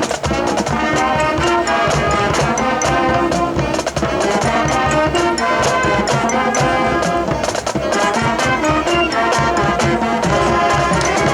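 Marching band playing: brass section carrying the melody over a steady drumline beat.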